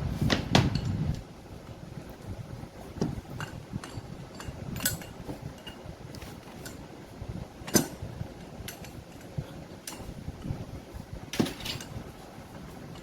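Metal tools and compressor parts clinking and knocking during the dismantling of a CO2 semi-hermetic compressor: irregular lighter taps with four louder metallic strikes.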